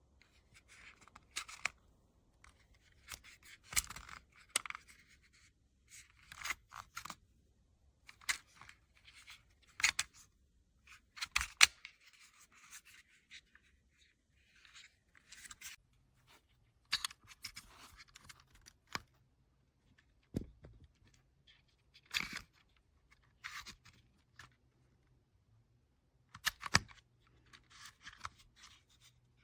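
Plastic travel power adapter being handled: irregular clicks and short scrapes as its parts and plug are pushed and worked, with a few sharper clicks scattered through.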